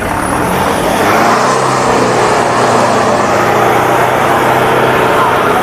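Toyota Fortuner's engine running hard at steady revs as it drives through deep mud, with a broad rushing noise over it.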